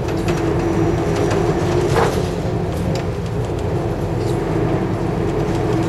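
Hino Blue Ribbon II city bus (five-speed manual) heard from inside while driving: steady diesel engine rumble with a whining tone that fades about halfway through, and light rattles and clicks from the cabin, with one louder knock about two seconds in.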